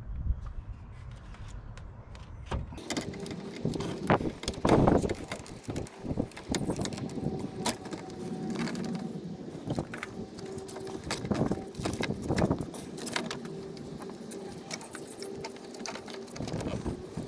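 Scattered metallic clinks, knocks and scrapes as a replacement starter motor is worked by hand down into its mounting on a small four-cylinder engine, with a faint steady hum underneath.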